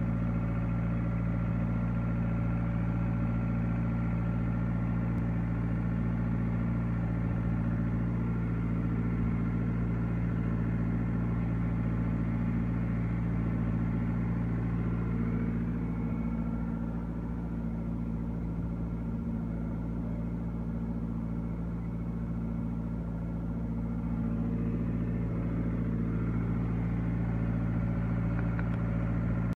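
John Deere 2640 tractor's diesel engine running steadily under load while pulling a three-bottom plow. The engine note eases off a little for several seconds past the middle, then comes back up.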